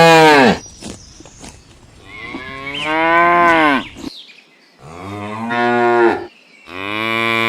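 Cow mooing: the tail of one long moo, then three more separate moos, the last one still going at the end.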